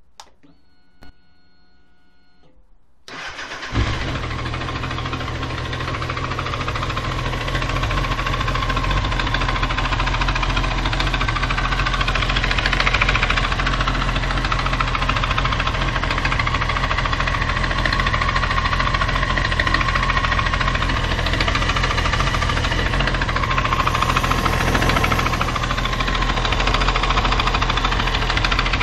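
Honda CBR929RR's inline-four engine started: two clicks and a brief steady whine, then the starter cranks about three seconds in and the engine catches and settles into a steady idle. It runs with a knock in the engine, whose cause is unknown.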